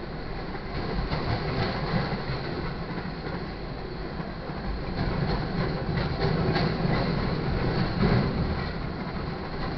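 Freight train cars rolling past a grade crossing: a steady rumble of steel wheels on rail, with frequent irregular clicks of wheels over the rail joints.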